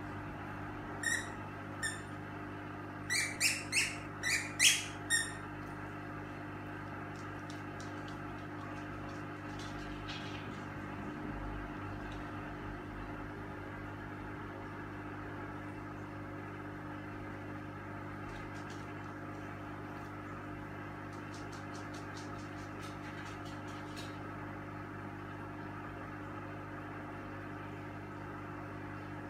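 A squeaky dog toy squeaks twice, then about six times in quick succession a few seconds in, high-pitched, over a steady hum.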